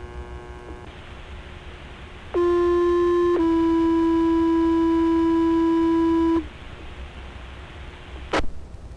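Two-tone sequential fire-pager tone-out heard through a scanner radio: one steady tone for about a second, then a slightly lower tone held for about three seconds, the alert that sets off a fire department's pagers. A brief click follows near the end, over low radio hiss.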